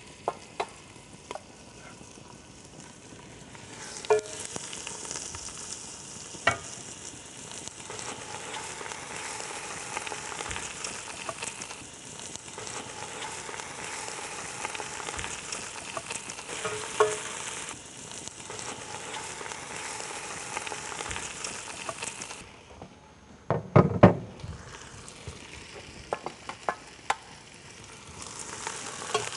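Chicken pieces sizzling steadily as they brown in hot oil with onions in a stainless steel pot, stirred and turned with a wooden spoon. Occasional sharp clicks, and a short cluster of loud knocks about two-thirds of the way through.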